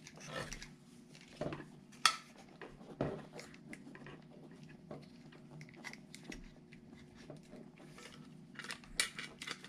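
Scattered clicks and knocks of a small plastic-and-metal RC rock crawler chassis being handled and turned over on a wooden bench while its servo wire is worked out through a slot, the sharpest tap about two seconds in and a few more near the end.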